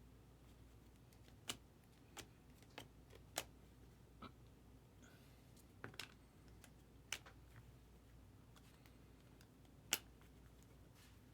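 Faint, scattered light clicks and taps, about ten at irregular intervals with the sharpest near the end, over a low steady hum.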